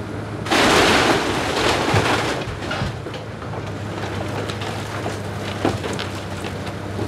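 Komatsu hydraulic excavator's diesel engine running steadily while its bucket tears into a wood-framed house. A loud crash of splintering wood and falling debris starts about half a second in and lasts about a second and a half, followed by scattered cracks and snaps.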